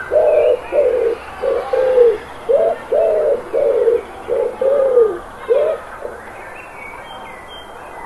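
Rock pigeons cooing: a run of about eleven short, low coos at roughly two a second, stopping about six seconds in. A few faint high chirps from small birds follow near the end.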